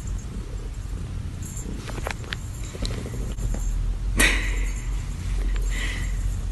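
A cat purring steadily, with a few light taps and one sharp click about four seconds in.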